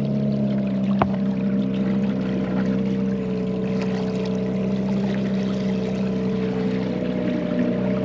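Small outboard motor running at a steady speed, pushing a canoe along, with water washing past the hull. A single sharp knock sounds about a second in.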